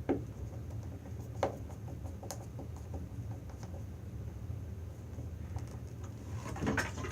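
Small clicks and ticks from a Cat5 wire being worked into the screw terminal of a female DC power connector, a few scattered ones and then a short cluster near the end. A steady low hum runs underneath.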